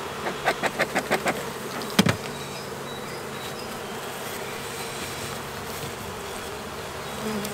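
Honeybees buzzing steadily around an opened hive. Early on there is a quick run of clicks while the bee smoker is worked over the feed hole, and about two seconds in a single sharp knock as the smoker is set down.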